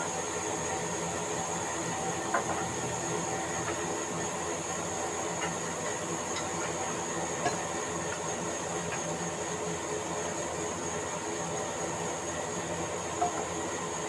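Large vertical band saw running steadily while timber is pushed through the blade, giving a high steady whine over an even hiss. A few light knocks sound a couple of seconds in, about halfway and near the end.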